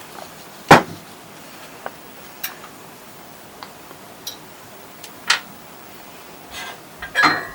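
Metal centrifugal pump parts being handled: the impeller retainer pin, impeller and back plate are taken off the stub shaft and set down, giving scattered clinks and knocks. The sharpest knock is about a second in, another a little past five seconds, and a short clatter near the end.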